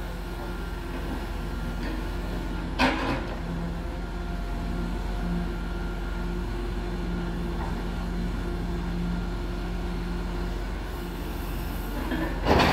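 Diesel engine of a grapple log-loader truck running steadily while its hydraulic knuckle boom works the claw. Two loud knocks of wood come about three seconds in and near the end, the second as the grapple drops logs into the truck's dump body.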